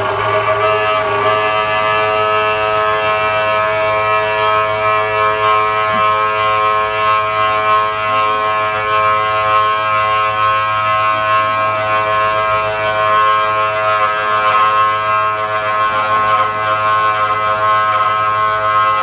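CNC machine spindle motor running at a steady speed: a loud, even electric whine made of several steady tones over a low hum.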